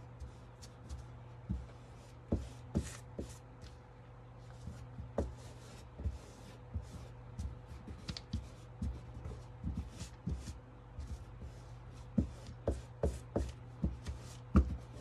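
Hands smoothing Mod Podge-soaked fabric onto a glass mason jar: soft rubbing and rustling with scattered light taps and clicks, over a steady low hum.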